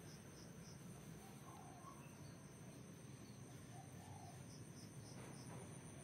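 Faint morning ambience of insects and birds: a steady high insect trill, two short runs of quick high chirps, and a few soft distant bird calls, over a low background hum.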